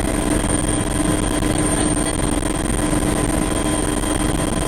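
Rescue helicopter running close by: a loud, steady rotor and engine noise with a constant high whine.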